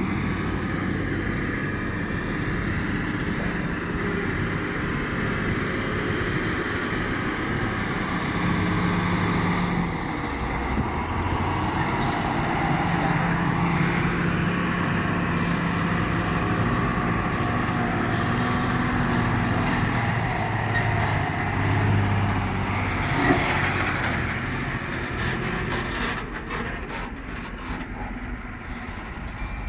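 Heavy diesel engines of an excavator and a tipper truck working, the engine note rising and falling under load, with one sharp clank about two-thirds of the way through.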